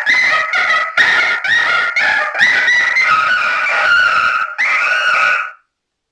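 Angry Chimp 12-volt wireless novelty car horn sounding loudly: a run of horn-like notes that jump up and down in pitch with short breaks between them, cutting off suddenly about five and a half seconds in.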